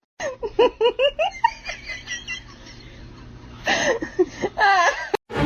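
A person laughing in a quick run of short bursts, with a second bout of laughter about three and a half seconds in.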